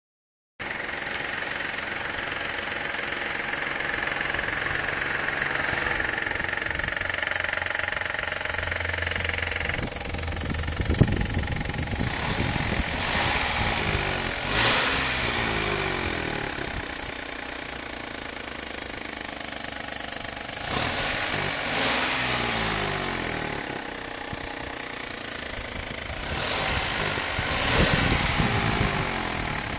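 Corsa B engine idling, with a steady high whine over it for the first ten seconds or so. It is then revved up and let fall back to idle three times. The owner finds the engine sound weird and links it to poor acceleration.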